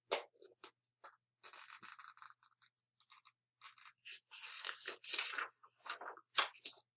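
Paper rustling and scraping from a hardcover picture book held up in the hands, with a page turned near the end.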